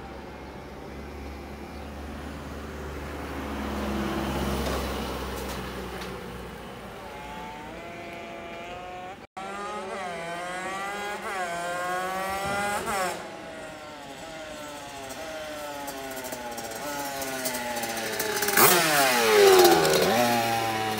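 Rieju MRT Pro's two-stroke engine, fitted with an 86 cc Top Performance aluminium kit and a Voca exhaust, accelerating hard through the gears: its pitch climbs and drops back at each upshift. Near the end the bike passes close by, at its loudest, with the pitch falling as it goes past.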